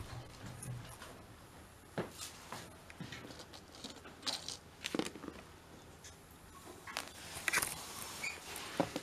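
Scattered light clicks, taps and crinkles as a plastic bag and a blister pack of pills are handled, with a few sharper ticks about two seconds in, about five seconds in and near the end.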